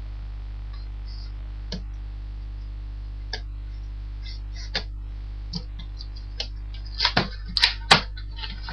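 Scattered clicks and light knocks of a cardboard box and its packaging being handled, getting busier with a few sharper knocks near the end, over a steady low hum.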